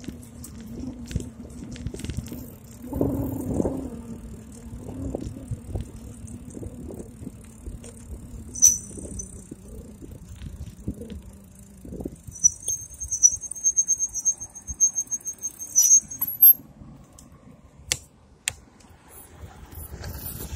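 A bike rolling along a street with a steady low hum, then its brakes squealing high: once briefly, then in a rapid string of short squeals as it slows to a stop.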